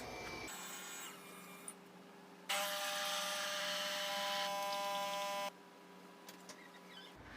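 Coffee machine's motor running with a steady whine for about three seconds, starting abruptly about two and a half seconds in and cutting off sharply.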